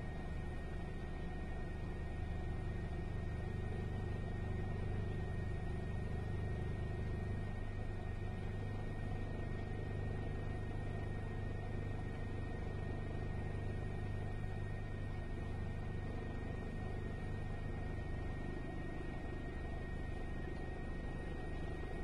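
Steady low drone of the aircraft carrying the camera, heard from inside, with a faint steady high whine above it.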